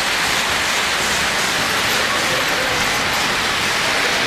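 O-gauge three-rail model train rolling past on the track, a steady rushing rumble of wheels on rail.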